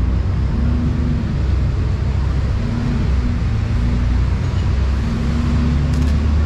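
Steady low rumble of a double-decker tour bus driving through city traffic, heard from its open top deck.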